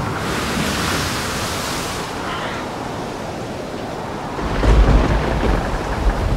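Storm sound effect of wind and surf, a steady rushing noise, with a deep rumble swelling about four and a half seconds in.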